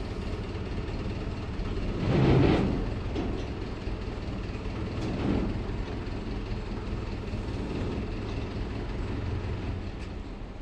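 Steady rumble of running machinery, with a louder rushing surge about two seconds in and a smaller one about five seconds in.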